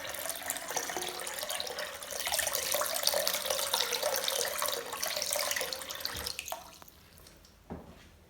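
Water running from a bathroom basin mixer tap with a newly fitted cartridge into the sink, then fading out about six to seven seconds in. A small knock near the end.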